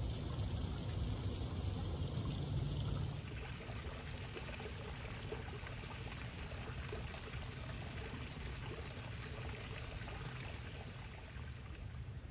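Steady trickle and splash of water from a garden pool's fountain, an even, unbroken running sound that changes slightly and grows a little quieter about three seconds in.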